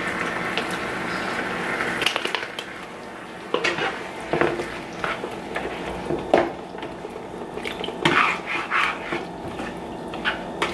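A spatula stirring vegetables in a frying pan: irregular clinks and scrapes against the pan, starting about two seconds in, over a steady hiss.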